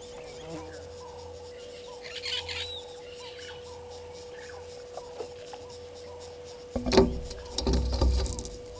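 African elephant browsing in a bush: a sharp snap about seven seconds in, then over a second of loud crackling and rustling as branches and leaves are broken and pulled. Under it runs a steady hum with repeated short chirps and a brief bird call.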